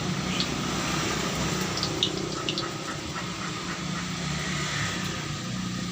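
Cassava pieces frying in hot oil under a cover of banana leaves, a steady sizzle.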